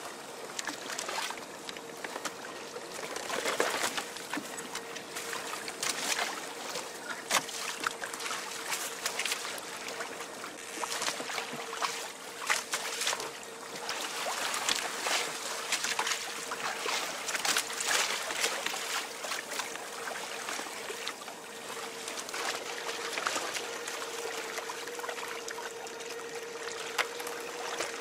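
Water rushing and splashing along the hull of a Hobie Adventure Island sailing kayak moving through choppy sea, with many short splashes of spray. A faint steady hum runs underneath.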